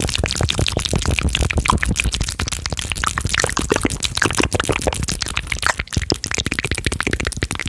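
Fast, intense ASMR mouth sounds close to the microphone: rapid wet clicks, smacks and pops, many per second, without a break.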